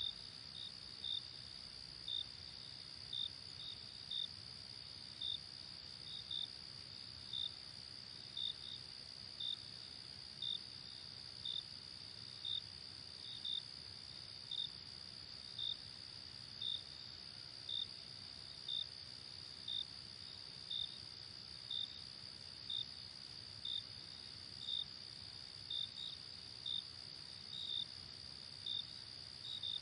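Night crickets: a steady high-pitched trill, with short chirps over it about once a second, sometimes in quick pairs.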